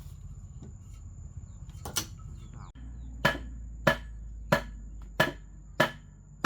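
Hammer blows on timber: one knock about two seconds in, then a steady run of strikes roughly every two-thirds of a second, as of a hammer driving a joint or peg home in a wooden house frame.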